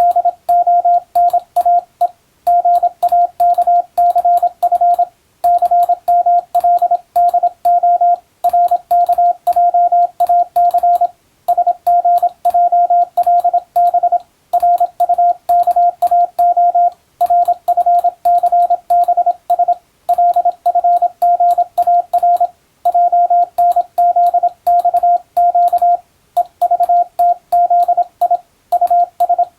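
Morse code sent as a steady tone of about 700 Hz, keyed rapidly into dots and dashes, with a sharp click at the edges of each element. The code comes in runs of about three seconds separated by brief pauses, like the five-letter groups of telegram practice.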